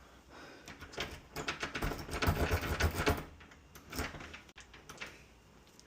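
Metal keys clicking and rattling as a key is worked into a door lock, a quick run of clicks for a couple of seconds followed by a few single clicks.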